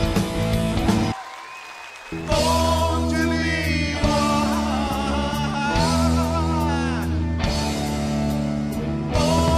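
Live blues-rock band of electric guitars, bass and drum kit. The band stops briefly about a second in, leaving a single held note, then comes back in full.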